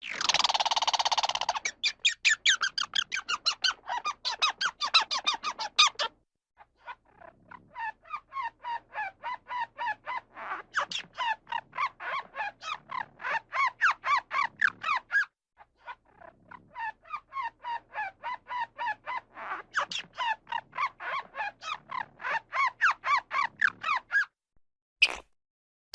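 Squirrel giving its alarm chatter: a brief harsh squeal, then long bouts of sharp chirping calls repeated about six times a second, broken by two short pauses.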